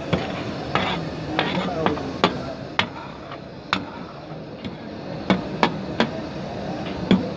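Metal ladle striking and scraping a large tawa griddle as diced liver is stirred and fried, in irregular sharp clanks about every half second to a second, over a steady sizzle.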